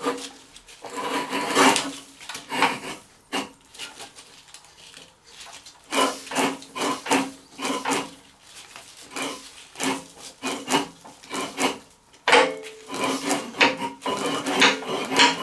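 Briggs & Stratton single-cylinder mower engine being turned over by hand at the flywheel, giving repeated rough scraping, squeaking strokes in three runs with short lulls between. The engine does turn, stiffly; the grating is taken to come from underneath, likely the seized transmission-belt pulleys, rather than from inside the crankcase.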